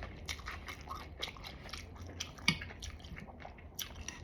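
A person chewing a mouthful of food close to the microphone: soft, irregular wet clicks and smacks.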